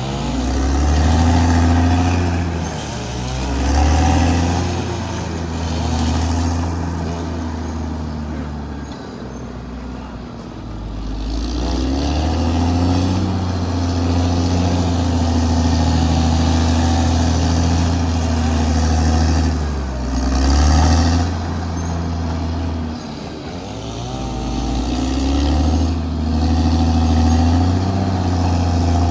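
Caterpillar D6R XL bulldozer's diesel engine running under working load. Its deep tone swells and eases several times as the load on it changes.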